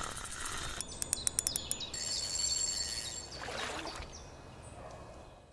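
Birds chirping over a faint outdoor hiss, with a quick run of short chirps about a second in. The sound fades out near the end.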